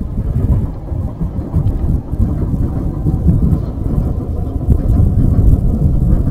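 Strong wind buffeting the action camera's microphone: a loud, uneven low rumble that swells and gusts.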